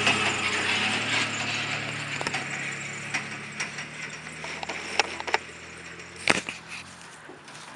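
Pickup truck engine running and growing fainter as the truck drives off across a field, with a few sharp clicks and rattles, the loudest about six seconds in.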